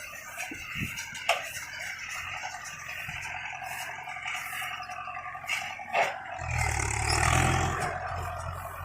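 Mahindra Yuvo 475 diesel tractor running a Gomadhi baler, a steady mechanical clatter with a sharp knock about a second in and another about six seconds in. A low rumble swells up near the end.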